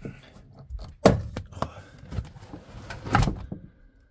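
Knocks, clicks and scraping of hands handling parts inside a car's rear compartment, with two loud thuds, about a second in and again about three seconds in.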